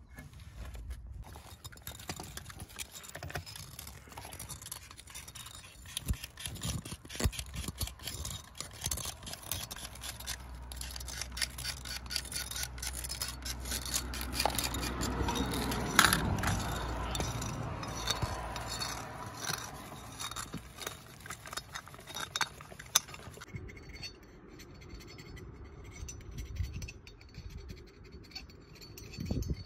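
Hand work on a car's EGR valve during cleaning: scraping and wiping at sooty carbon deposits, with small metallic clicks and knocks as the valve is handled. A louder stretch of scrubbing about halfway through.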